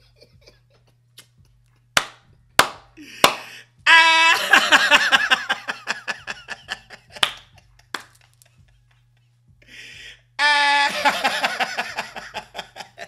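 A man laughing hard in two loud bursts, the first preceded by three sharp smacks. A steady low hum underneath.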